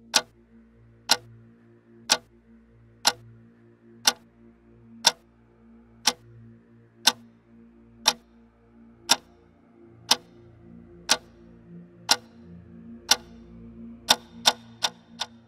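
Clock-like ticking in a promo soundtrack: one sharp tick a second, quickening to about five a second near the end, over a faint low drone.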